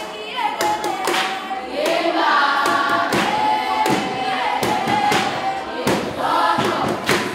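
A large group of young Zulu women singing a traditional dance song together in held notes that glide in pitch, with sharp percussive hits marking the beat.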